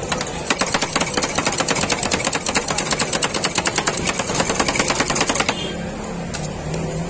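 Two metal spatulas chopping ice cream mix on the frozen steel pan of a rolled ice cream cart: a rapid run of sharp steel-on-steel clacks, several a second. About five and a half seconds in the chopping stops, and only a few separate taps follow.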